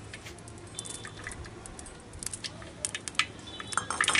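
Mustard oil poured from a steel bowl into a clay handi over a wood fire, with scattered sharp crackles and pops that grow more frequent near the end.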